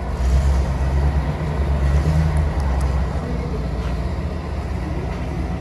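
A GAZ truck's engine running as the truck drives slowly past: a deep, steady rumble, loudest in the first few seconds and easing slightly after.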